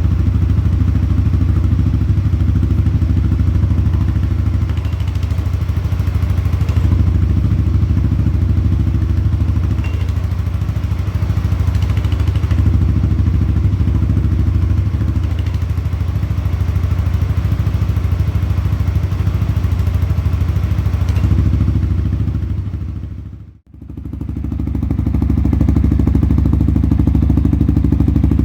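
CFMoto CForce 625 ATV's single-cylinder engine idling steadily, heard through its exhaust with a deep, even pulse. About three-quarters of the way through, the sound fades out and back in.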